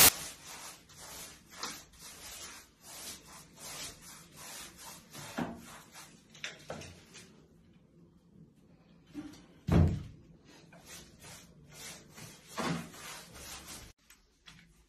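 Hand tools working on bathroom walls during renovation: a quick run of short knocks and scrapes, about three a second, then a few separate dull thumps, the loudest about ten seconds in.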